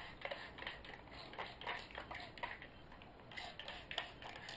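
Hand-pump spray bottle spritzing water onto hair: a string of short, faint, irregular sprays and trigger clicks.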